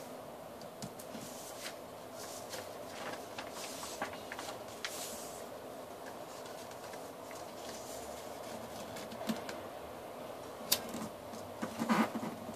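A sheet of paper being handled, folded and creased by hand: light rustles and crisp crackles, with a sharp crackle about eleven seconds in and a louder rustling cluster near the end, over a steady low hum.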